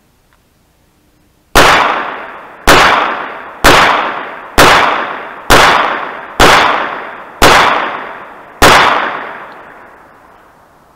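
Eight shots from a Kimber .45 ACP pistol, fired at a steady pace of about one a second. Each shot's sound trails off over about a second, and the last one fades out over roughly two seconds.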